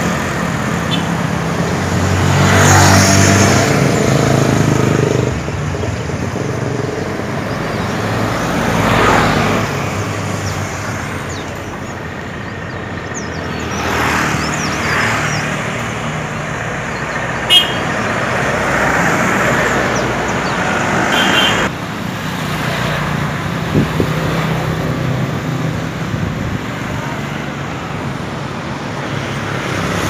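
Street traffic: motorcycles and trucks passing with engines running, swelling and fading as each goes by, with a short horn toot in the middle stretch.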